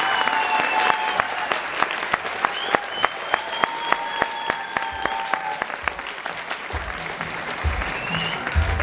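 Audience applauding, many hands clapping unevenly, with a few voices calling out over it.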